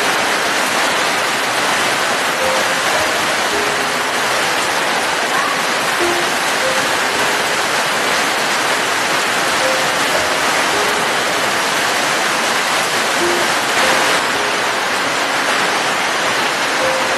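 Steady, even rainfall, a continuous hiss of many drops. Faint short notes of soft background music sound under it about once a second.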